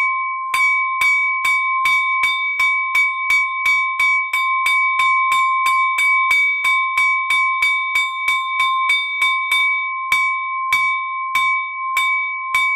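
Small hanging village alarm bell struck rapidly and repeatedly, about three strikes a second, ringing on one clear pitch; the strikes slow near the end. This is the warning signal rung when the volcano wakes up or rock falls come down.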